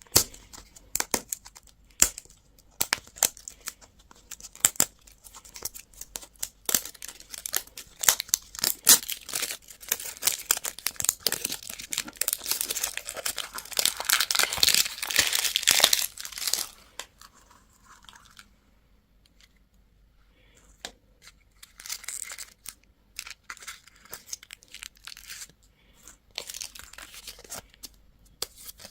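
Plastic and foil candy and toy wrappers being torn open and crinkled by hand, in quick crackling bursts. The crinkling is densest and loudest in the middle, pauses briefly, then resumes more sparsely.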